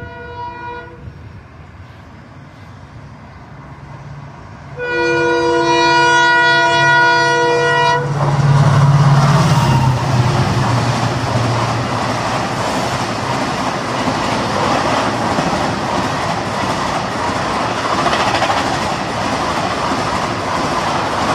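Indian Railways WDP-4D diesel-electric locomotive sounding its horn, a blast ending about a second in and a louder, longer one from about five to eight seconds, then the locomotive's engine passes with a low rumble. The coaches follow, rolling by with a steady clatter of wheels over the rail joints.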